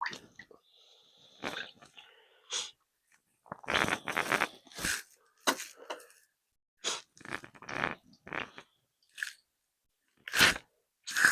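Cut limes being squeezed by hand: a series of short, irregular noises, loudest about four seconds in and again near the end.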